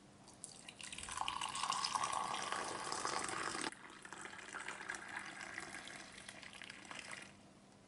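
Masala chai poured in a stream into a glass mug as it fills. The pour is louder for the first few seconds, drops suddenly to a softer pour about three and a half seconds in, and stops near the end.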